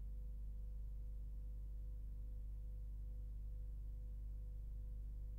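Steady low hum, like mains hum on the sound track, with a faint thin tone above it and nothing else happening.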